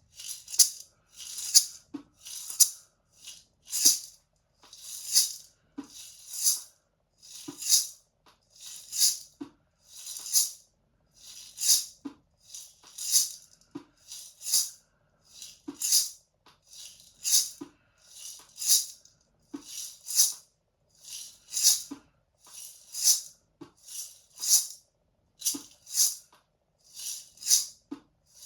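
Maracas shaken in short, separate strokes, about one to two a second and unevenly spaced.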